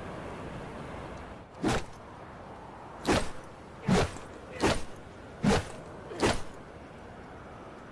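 Combat knife sound effects: six short, sharp metallic strokes, the first two about a second and a half apart and the rest coming faster, under a steady faint hiss.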